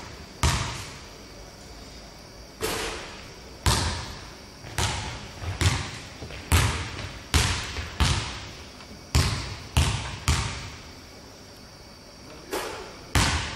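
A basketball bouncing on a hardwood gym floor: about a dozen irregularly spaced thuds, each echoing in the large hall, with a short pause near the end.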